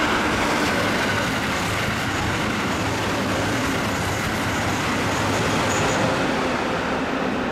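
Keikyu 2100-series electric train running past along the platform: a steady noise of wheels on rails and running gear.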